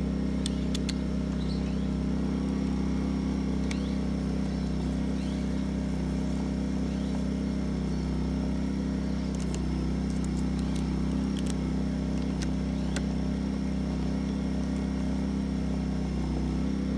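Small petrol generator running steadily with an even low hum, carrying the air conditioner's load. A few light clicks from a screwdriver and screws are scattered through.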